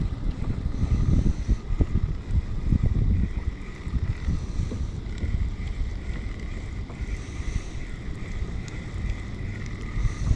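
Wind buffeting the microphone in uneven gusts, over the sound of water around a kayak.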